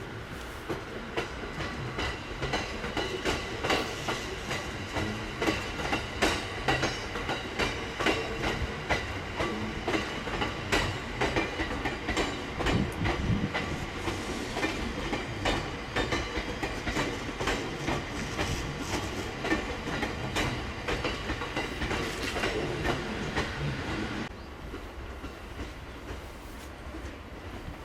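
E231 series electric multiple unit running past on yard track, its wheels clicking over rail joints and points in a dense run of knocks over a steady running noise. The sound drops off suddenly about 24 seconds in.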